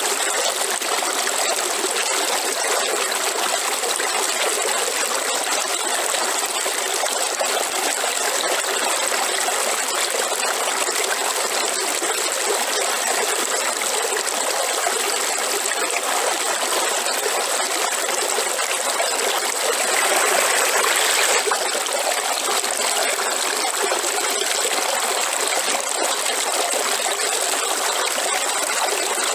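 River water flowing in a steady rush, briefly louder for a second or two about twenty seconds in.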